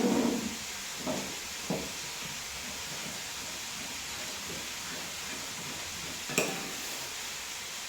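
Pot of beef goulash steaming on the stove, a steady hiss. There are a few short kitchen knocks, and a sharp clink about six seconds in.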